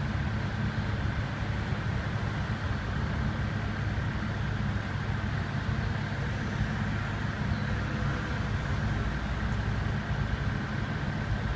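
Steady low rumble of city road traffic, with no distinct events standing out.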